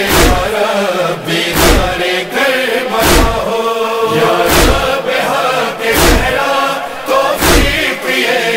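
Interlude of an Urdu noha: a chorus chanting held notes over a steady heavy beat that falls about once every second and a half.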